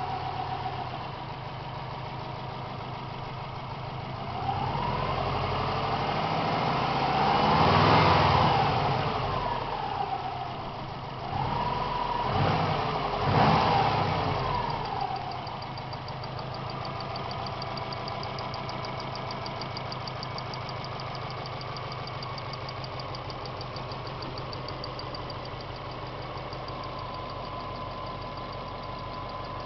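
Warm Subaru GT flat-four engine idling, revved up and back down twice, the second time in two quick blips, then settling to a steady idle.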